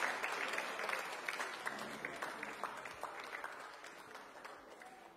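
Audience applauding after a song ends, the clapping thinning and dying away.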